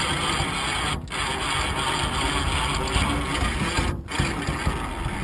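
Electric winch running as it drags a large pine log up into a pickup's bed, the log scraping as it comes. The noise breaks off briefly twice, about a second in and about four seconds in.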